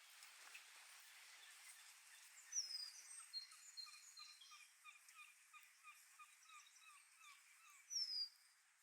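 Small songbirds singing. A high whistle slides downward twice, once about two and a half seconds in and again near the end, and these are the loudest sounds. Between them comes a run of short repeated notes, about two a second, over faint chirping.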